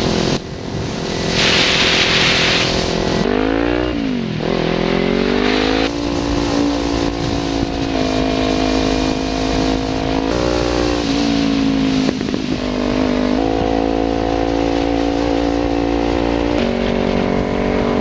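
Kawasaki Ninja 300's parallel-twin engine running under way, heard from the bike-mounted camera. The engine pitch dips and climbs again about four seconds in, then holds steady, shifting up or down in steps several times, with a burst of wind hiss about two seconds in.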